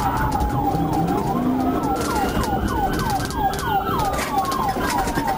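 Police car siren during a pursuit: a fast yelp of short falling chirps, about four a second, over a slower wail that rises and then falls. Road and engine noise run underneath.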